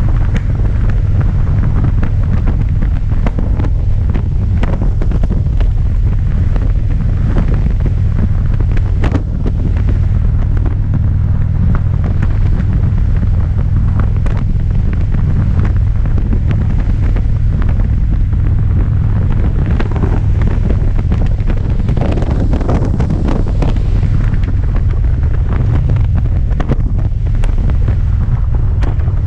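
Heavy wind noise buffeting the microphone on a touring motorcycle riding at highway speed, with the engine running steadily underneath.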